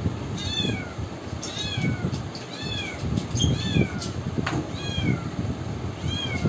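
A cat mewing again and again, short high calls that rise and fall, about one a second. Under them, the rustle and knock of a cardboard box and papers being handled.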